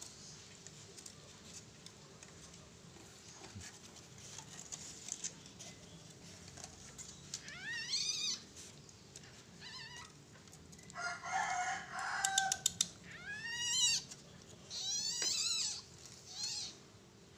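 Several short bursts of high, rapidly rising-and-falling animal calls in the second half, with a harsher, noisier call between them.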